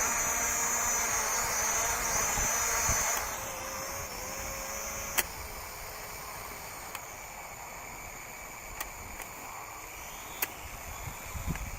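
Visuo XS812 toy quadcopter's motors and propellers whirring at full throttle while the drone stays on the ground, too heavy with a zip-tied action camera to lift off. The whir winds down about three seconds in, leaving a faint hiss with a few light clicks.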